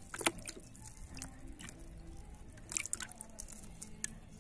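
Water dripping and small splashes in a bucket as freshly caught small fish are dropped in from wet hands, with scattered sharp ticks and taps, the clearest just after the start and near the three-second mark.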